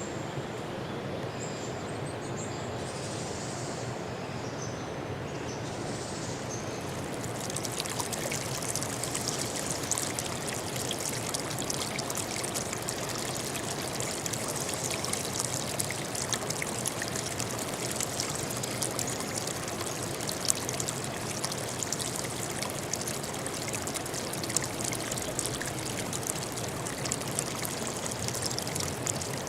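Running water, a stream trickling and splashing steadily. About seven seconds in it turns louder and brighter, with a dense fine crackle of droplets. Before that change a few faint, short, high whistled notes sound over the water.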